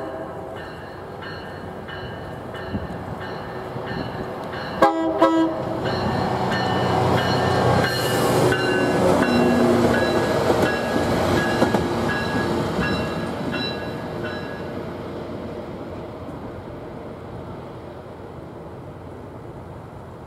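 Loram rail grinder (a self-propelled rail-grinding train) gives a short horn blast about five seconds in. Its engines and wheels then pass close by, loudest a few seconds later, and fade as it moves away.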